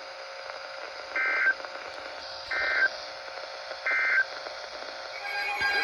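Three short bursts of the warbling EAS/SAME data tone, about a second and a half apart, over steady radio hiss from a NOAA Weather Radio receiver. They are the End of Message code that closes a broadcast alert.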